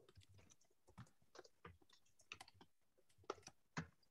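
Faint, irregular keystrokes of typing on a computer keyboard, a message being typed into a chat.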